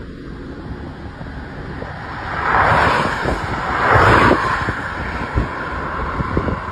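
Road and wind noise of a moving car: a constant low rumble, with two loud swells of rushing noise about two and a half and four seconds in.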